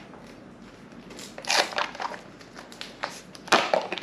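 Crinkling and tearing of packaging on the G FUEL powder tub: two short bouts, about a second in and again near the end.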